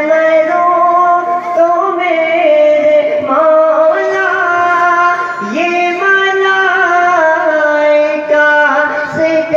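A young man singing an Urdu naat into a microphone, drawing out long, held notes that glide between pitches.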